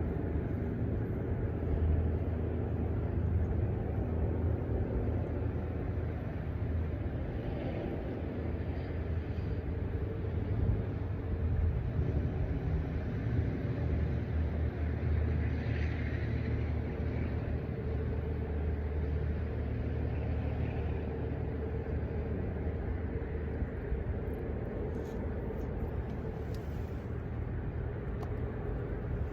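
A steady low rumble with no breaks, its weight deep in the bass.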